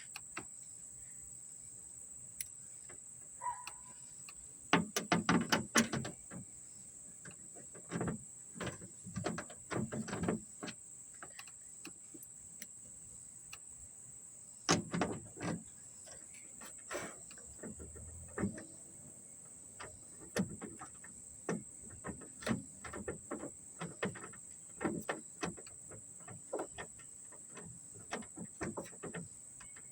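Scattered clicks and knocks of hand tools and metal parts, some in short quick clusters, as a replacement trunk latch is bolted onto a Ford Crown Victoria's trunk.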